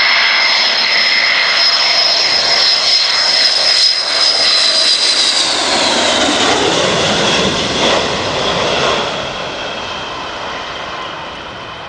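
Sukhoi Su-27's twin AL-31F turbofan engines as the jet passes: loud jet noise with a high whine that drops in pitch about halfway through, then fades away.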